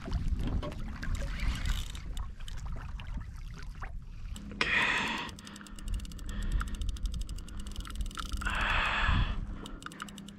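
Wind and water noise around a kayak, with two heavy breaths out from an angler straining against a deep-diving hooked fish, about halfway through and near the end. Between the breaths comes a quick run of fine, even ticking.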